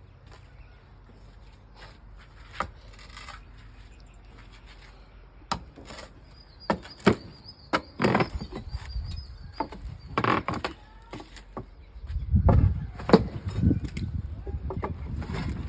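Irregular knocks and clatter of wooden formwork being taken off a concrete column, with heavier thuds near the end. A thin high whine runs for a few seconds in the middle.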